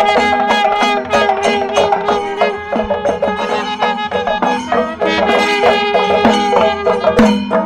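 Traditional Indian music: sustained melody notes over a busy pattern of drum strokes.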